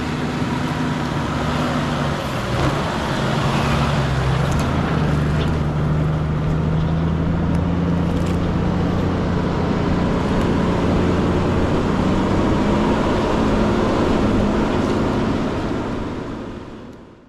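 Toyota Landcruiser Troopcarrier driving along a track: steady engine note with tyre and road noise and a few knocks. The engine note climbs slowly in the second half, and the sound fades out near the end.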